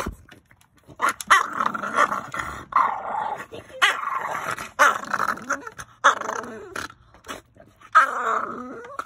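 French bulldog growling and grumbling in a string of about seven short, rough bursts, starting about a second in, as it squares up to a foot.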